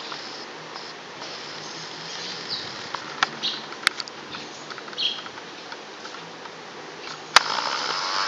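Outdoor background hiss with faint, short, high chirps of small birds now and then, and a few sharp clicks. Near the end a sharp click is followed by louder handling noise from the camera.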